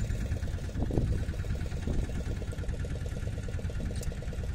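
Boat engine running steadily at trolling speed, an even low hum with a fast regular beat.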